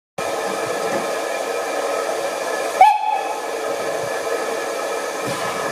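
Steam locomotive standing with steam hissing steadily, and one short whistle about three seconds in.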